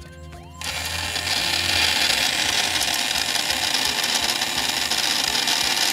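A toy aquarium's water filter switches on about half a second in and runs with a steady, even whir, pumping and aerating the water.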